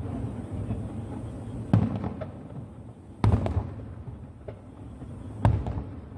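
Aerial firework shells bursting: three loud booms roughly two seconds apart, each with a short rolling echo, and a few fainter pops between them.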